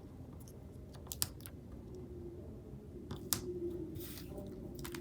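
Sparse light clicks and taps of sticker sheets and tweezers being handled over a paper planner, a few sharp ticks at a time.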